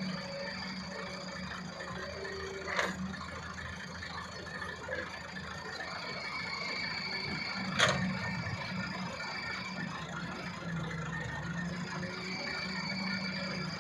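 Diesel engines of a wheeled excavator and a Massey Ferguson 375 tractor running steadily, with a high whine that comes and goes while the excavator works. Two sharp knocks from the loading, one about three seconds in and a louder one about eight seconds in.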